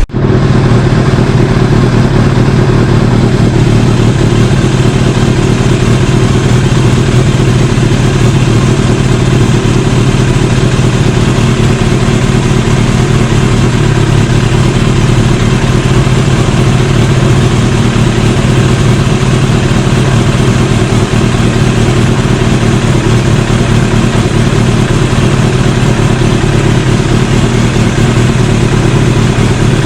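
1988 Kawasaki ZX-10 Tomcat's inline-four engine idling steadily.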